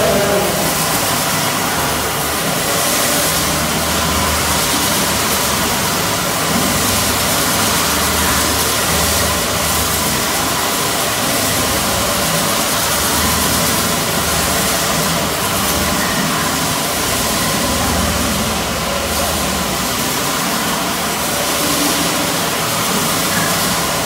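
Electric stone-floor grinding machine running steadily, its motor humming as the rotating grinding head works across the stone floor.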